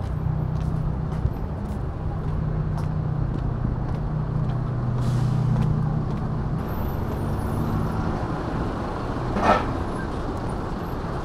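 Road traffic: a large vehicle's engine running with a steady low hum, and a short sharp sound about nine and a half seconds in.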